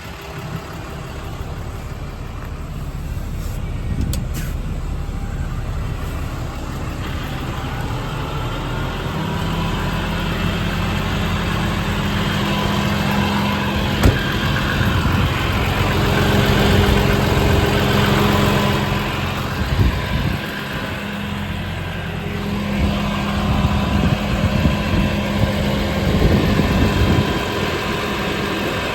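Idling diesel engine of a Ram 5500 service truck. About nine seconds in a steady low hum joins and runs on, breaking off briefly about twenty-two seconds in, with one sharp click about fourteen seconds in.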